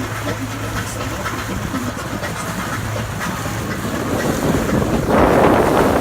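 Boat engine running with a steady low hum under wind buffeting the microphone; the rush of wind grows suddenly louder about five seconds in.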